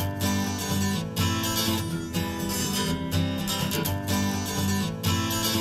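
Acoustic guitar music with a steady strummed rhythm, starting abruptly at the opening of an acoustic track, before the vocals come in.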